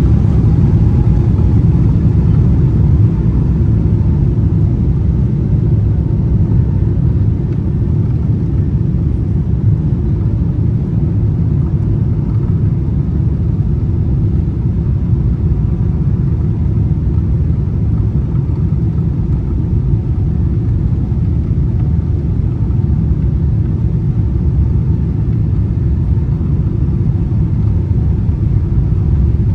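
Steady low rumble of a jet airliner's engines and airframe heard inside the passenger cabin as the aircraft rolls along the ground.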